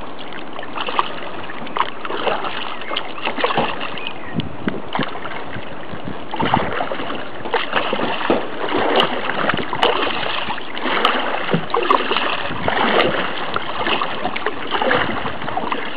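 Double-bladed paddle dipping and splashing into the water on alternate sides of an open canoe, about one stroke a second, over a steady wash of water moving along the hull. The strokes become more distinct about six seconds in.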